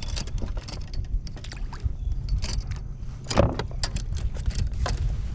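Kayak under way: scattered light clicks and knocks from the hull and its fittings over a steady low wind rumble on the microphone, with one louder knock about three and a half seconds in.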